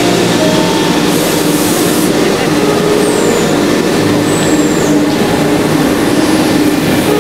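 Steady, loud running noise of a PVC foam board production line's machinery, with two short, high, falling squeaks about three and four and a half seconds in.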